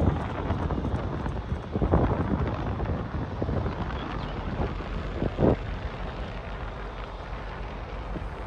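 Wind rumbling on a phone's microphone, with a couple of brief knocks about two and five and a half seconds in.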